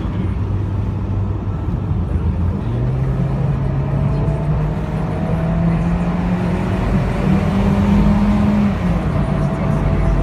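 Car engine running under way with wind and road noise in the open cabin; its note steps up about three seconds in, climbs further, then drops back shortly before the end.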